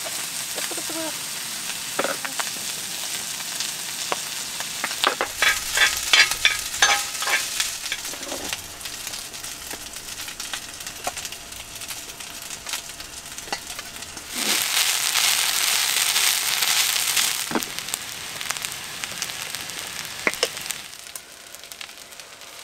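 Rice stir-frying in a hot pan: a steady sizzle, with a utensil scraping and clacking against the pan for a few seconds. A louder rush of sizzling comes about two-thirds of the way in, and the sizzle is quieter near the end.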